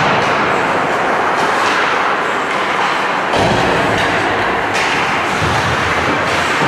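Ice hockey game under way in an indoor rink: a steady loud rush of rink noise, with a few faint sharp knocks.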